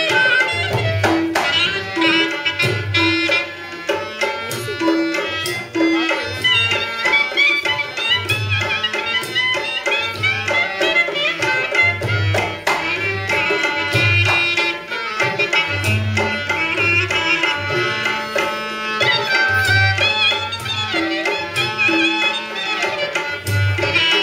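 Indian folk music accompanying a string-puppet act: a hand drum beats a steady rhythm with sharp hits, under a wavering melodic instrument line.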